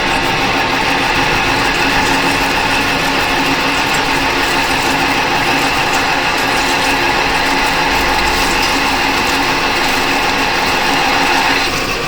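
Metal lathe running steadily while turning a stainless steel shaft: a continuous mechanical gear-and-spindle noise with several steady tones, easing slightly near the end.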